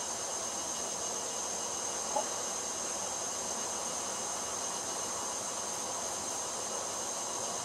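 Steady high-pitched whine over an even hiss, with one brief short chirp about two seconds in.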